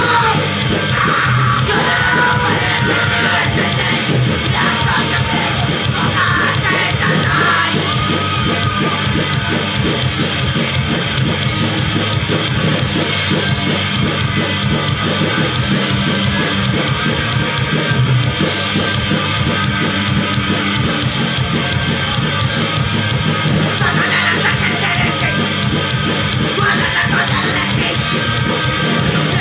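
Live punk rock band playing loud and steady, with vocals over the music for the first several seconds and again near the end.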